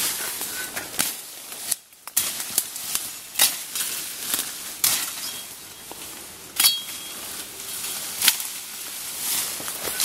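People pushing on foot through dense bamboo and dry undergrowth: leaves and stems rustle and brush, with many irregular sharp snaps and crackles of dry canes breaking underfoot.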